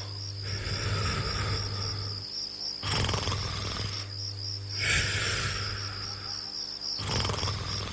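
A person snoring in a steady rhythm: a rasping snore about every two seconds, alternating with a breathy hiss. Crickets trill steadily behind it.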